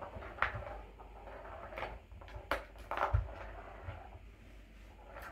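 Kittens pawing at and scrambling over a plastic ball-track cat toy: a handful of scattered sharp plastic clicks and knocks, with small rustles in between.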